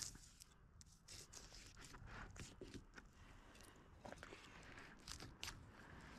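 Faint crunching and scraping of a flexible fillet knife cutting through a sheepshead's scales and flesh, in short irregular strokes.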